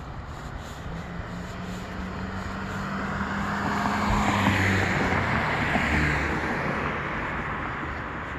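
A motor vehicle passing on the road: its engine hum and tyre noise build up, peak about halfway through, then fade away.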